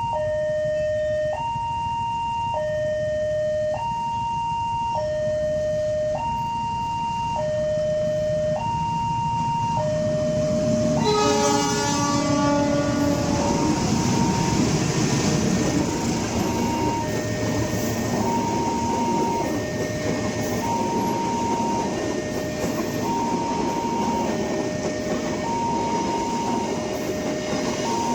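Level-crossing warning alarm alternating between a low and a high tone, each held a little over a second. About eleven seconds in, a locomotive horn sounds for two to three seconds. A train then rumbles past, with the alarm still going under it.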